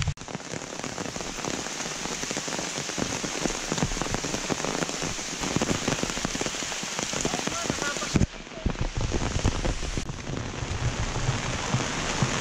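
Steady rain falling, a dense patter of many small drop hits.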